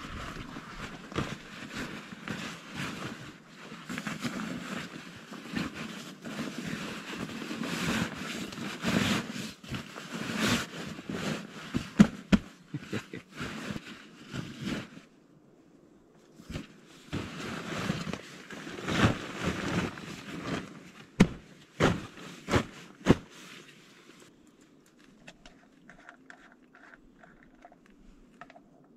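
Rustling and scraping of a fabric backpack and gear being rummaged through, with scattered sharp clicks and knocks. The handling pauses about halfway through, picks up again with several sharp knocks, and dies down for the last few seconds.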